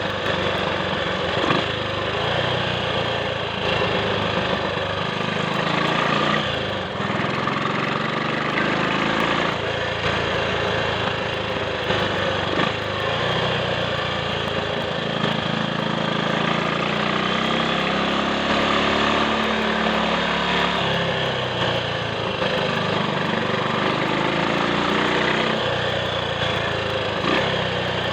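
Triumph Sports Cub's 199 cc single-cylinder four-stroke engine running under way, its pitch rising and falling with road speed and gear changes, with wind rush over the microphone.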